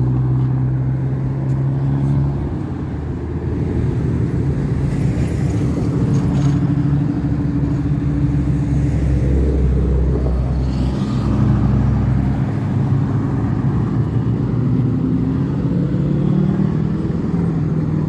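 Cars and pickup trucks passing one after another in slow traffic, engines running, with a deep low exhaust rumble that grows loudest about halfway through.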